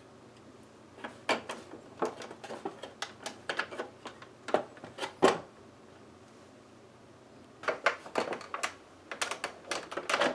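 Hard plastic parts of a toy dashboard clicking and knocking together as they are fitted back into place: a run of irregular clicks, a pause of about two seconds, then another run of clicks.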